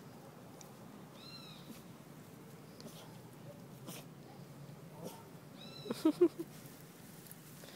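Bernese mountain dog puppies vocalising while play-fighting. A short high-pitched whine comes about a second in, then another whine and a quick run of about four loud, short yelps around six seconds in.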